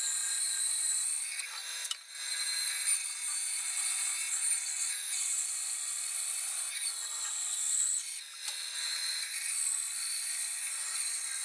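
Band saw cutting through a thick walnut block along a curved line: a steady sawing hiss that dips briefly about two seconds in and again near eight seconds.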